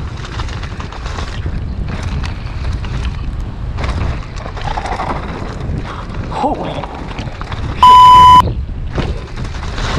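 Mountain bike ridden fast down a dirt trail, heard from a camera mounted on the rider: a steady rumble of tyres over dirt and roots, knocks and rattles from the bike, and wind buffeting the microphone. About eight seconds in, a loud electronic beep cuts in for about half a second.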